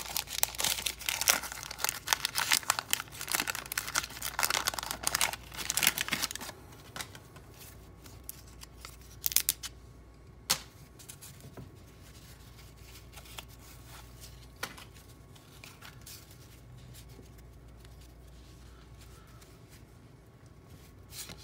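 Wax-paper wrapper of a 1987 Topps baseball card pack being torn open and crinkled, a dense crackling that lasts about six seconds. After it comes quieter handling of the cardboard cards, with a few sharp clicks.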